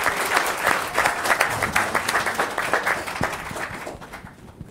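Audience applauding a guest onto the stage, the clapping thinning out and dying away near the end.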